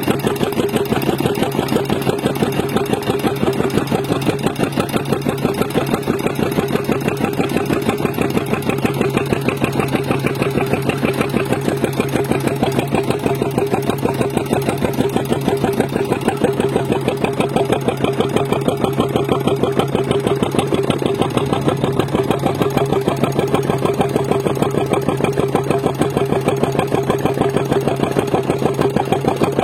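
An engine running steadily at idle, with a fast, even pulse and no change in speed.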